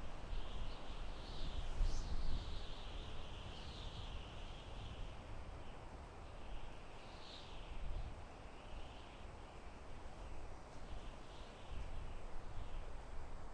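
Soft wind blowing through a forest, a steady rush with low rumbling gusts, strongest about 2 seconds in. Small birds chirp faintly and repeatedly over it.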